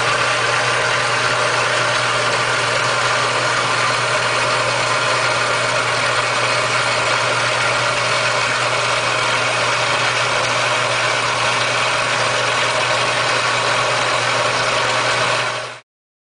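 Early 20th-century watchmaker's pinion cutting engine running steadily with a constant hum. It is belt-driven through pulleys and is not cutting metal. The sound cuts off suddenly near the end.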